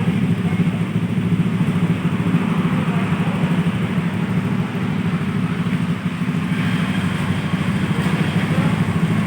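Honda Scoopy scooter's small single-cylinder engine idling steadily as it warms up, with an even, fast putter.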